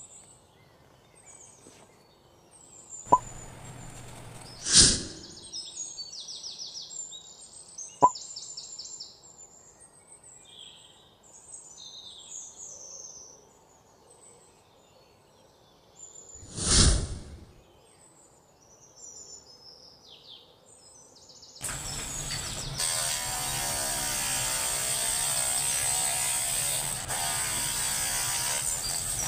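A small handheld electric rotary tool with a thin cutting disc runs steadily and grinds into a wooden ruler, starting about two-thirds of the way through. Before it, faint bird chirps, two sharp clicks and two loud brief whooshes.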